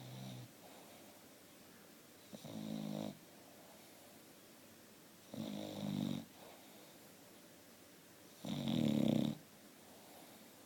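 English bulldog snoring in its sleep: three snores about three seconds apart, each under a second long, with a fainter one at the start.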